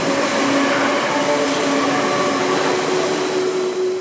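Steady, loud rushing noise under background music with long held notes that shift in pitch. The rushing cuts off just after the end.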